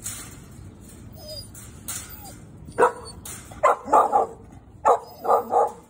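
Pit bull-type dogs barking: a couple of faint whines, then from about three seconds in a run of short, sharp barks in quick clusters of two and three.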